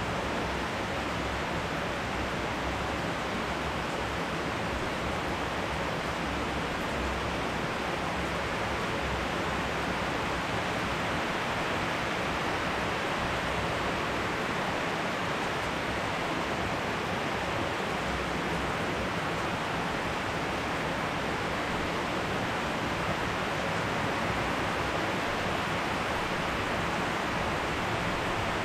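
Steady thunderstorm rain falling: an even, unbroken hiss with no thunderclaps.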